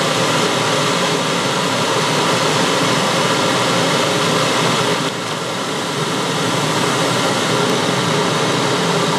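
WMF 3 kW electric kettle heating a litre of water toward the boil: a steady rushing hiss as bubbles form on the hot element and collapse in the not-yet-boiling water.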